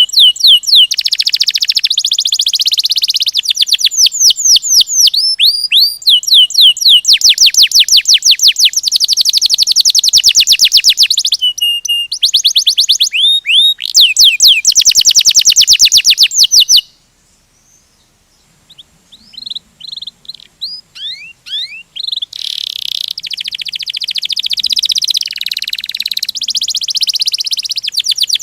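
Domestic canary singing a rolling song: fast trills of repeated downward-sweeping high notes strung into long phrases. The song breaks off suddenly about two-thirds of the way through, then returns more softly and builds back up.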